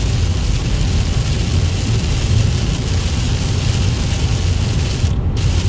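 Steady road and tyre rumble inside a vehicle driving on a wet highway, with a hiss of heavy rain on the windshield and roof. The hiss drops out briefly about five seconds in.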